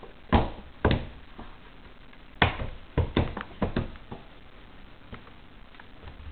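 A baby slapping its palms on a wooden tabletop: two sharp slaps in the first second, then a quicker run of five or six slaps between about two and a half and four seconds in, with a couple of faint taps after.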